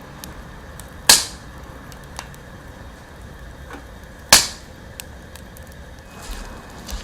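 Wood fire crackling with scattered small pops, and two loud, sharp cracks about three seconds apart.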